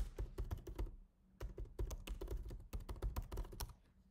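Typing on a computer keyboard: quick runs of key clicks, with a short pause about a second in, stopping shortly before the end.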